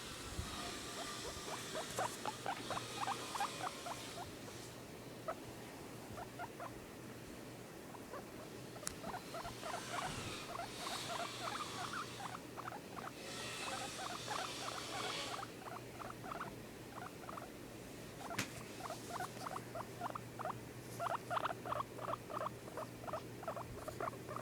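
Guinea pig calling in runs of rapid, short squeaky notes, several bouts with short pauses between, some of them with a rustling hiss.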